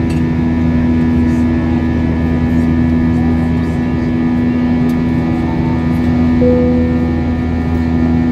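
Cabin noise of an Airbus A320-232 in the climb, heard from inside the cabin: the steady rush of air and the drone of its IAE V2500 turbofan engines, with a strong steady hum. A short higher tone sounds briefly about six and a half seconds in.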